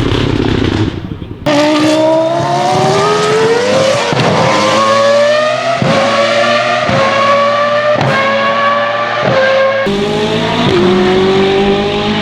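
Race car engine accelerating hard, its pitch climbing and then stepping through several gear changes, with a sharp crack or pop from the exhaust at each shift.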